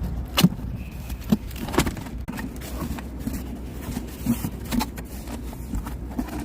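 Clicks and knocks of a semi-truck's air filter housing being opened and the filter handled: a few sharp clicks in the first two seconds, lighter knocks after, over a steady low hum.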